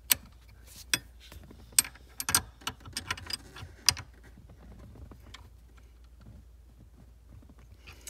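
Ratchet wrench and Allen key clicking and clinking on a shifter's stop screw as its jam nut is snugged down. Sharp metallic clicks come thick in the first four seconds, then only faint handling sounds.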